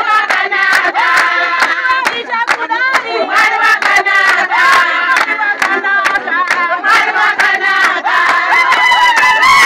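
A crowd singing together with hand clapping, with long high cries rising over it near the end.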